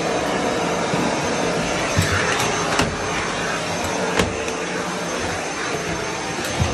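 Vacuum cleaner running steadily with its floor tool on carpet. A few sharp knocks stand out over the steady noise.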